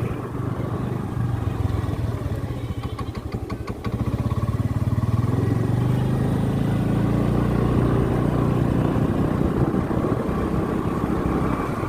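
A small vehicle engine running steadily while moving, growing a little louder about four seconds in.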